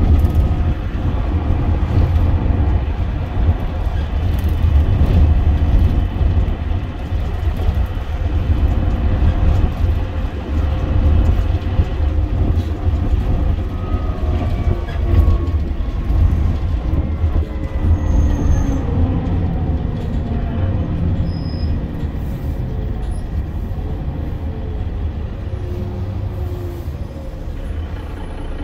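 Mercedes-Benz Citaro bus heard from inside the passenger cabin while on the move: its 6.4-litre OM906hLA six-cylinder diesel and ZF Ecomat automatic gearbox run over a heavy low rumble and road noise. From about halfway a whine falls steadily in pitch and the overall sound eases as the bus slows.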